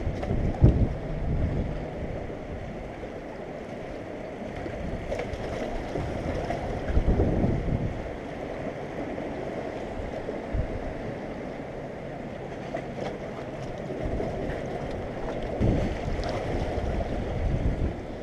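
Wind buffeting the microphone in low gusts over a steady wash of sea against breakwater rocks.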